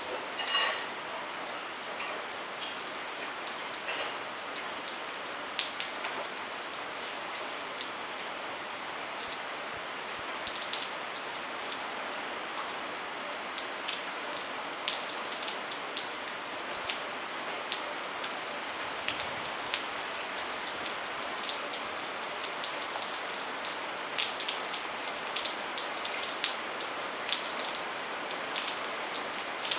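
Steady rain hissing down onto a wet courtyard, with many individual drips ticking on top. A brief pitched sound stands out about half a second in.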